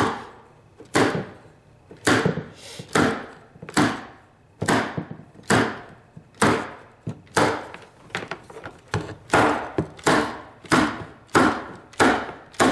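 Staple gun driving staples one after another through carpet into the underside of a wooden stair step, a sharp crack about once a second, each with a short ring-off.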